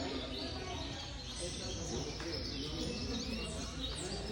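Many caged Gloster canaries chirping at once, with short overlapping calls throughout, over a steady low room rumble.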